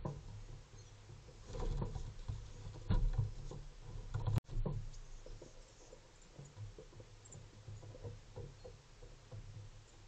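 Feral pigeons and American crows moving about on the wooden deck railing beside the trail camera: scattered soft taps and scuffs over a low rumble, with a brief break about four seconds in.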